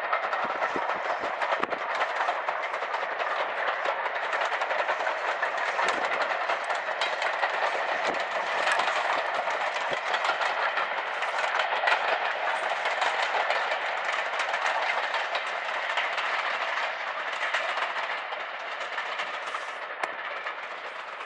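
Steam-hauled train, Ivatt 2MT locomotive and carriages, running past: a steady rush of noise with rapid clicking and clatter from the wheels and running gear, fading toward the end.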